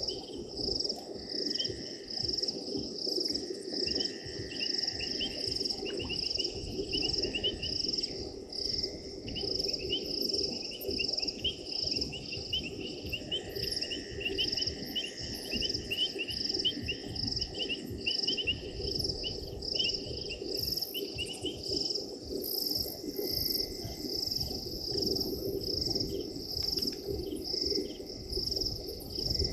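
Night chorus of crickets and other insects chirping in a steady, evenly pulsing rhythm, with faster trilling calls mixed in over a low, steady background hum.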